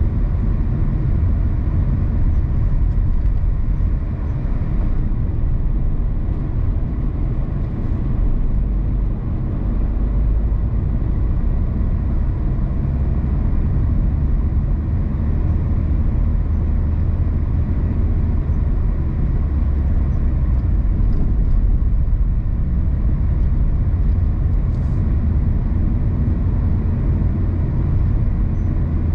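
A car driving on the road: steady low rumble of engine and tyre noise.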